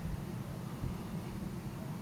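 Steady low rumble with a faint hiss over it, with no distinct events.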